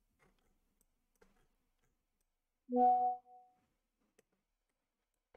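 A quiet room with a few faint clicks, and about three seconds in one short steady tone with overtones, lasting about half a second before it fades.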